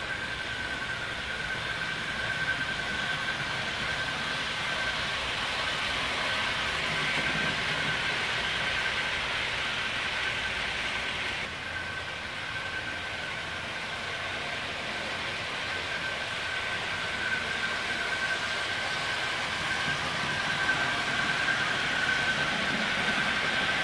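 Model trains running on the layout track: a steady rolling rumble of wheels on rails with a constant high-pitched whine. The level dips briefly about halfway through.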